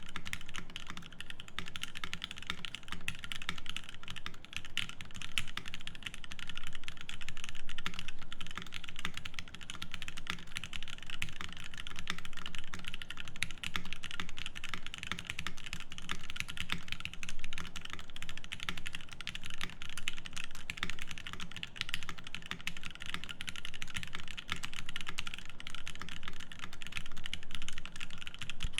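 Continuous fast typing on a Savage65 mechanical keyboard fitted with lubed Zeal Tealio V2 67 g linear switches on an FR4 plate, with GMK Coral keycaps: a dense, unbroken stream of keystrokes.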